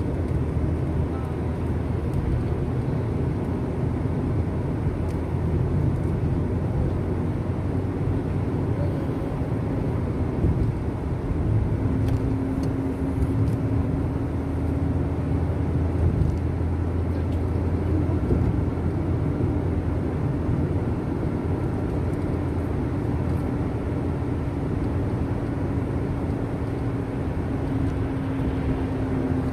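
Steady low rumble of a vehicle's engine and road noise. A steady engine hum joins about twelve seconds in and holds.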